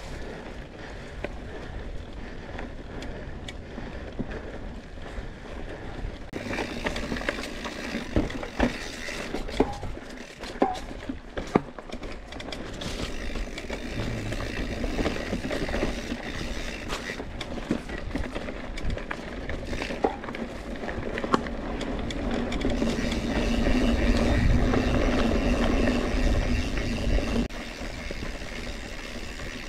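Scott Spark RC mountain bike being ridden over a dry dirt trail: tyres rolling on dirt and stones, with many sharp clicks and rattles from the bike over bumps. The rolling noise swells for several seconds near the end, then eases off.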